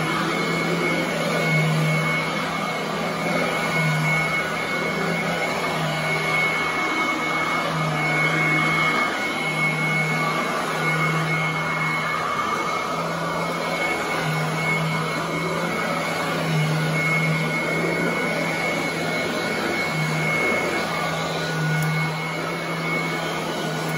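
Royal commercial upright vacuum running while pushed back and forth over carpet: a steady rushing motor noise with a thin high whine, and a low hum that swells and fades every second or two.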